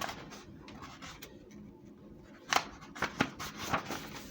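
Quiet handling of paper pages: faint rustling with a few short, sharp taps, the loudest a little past halfway.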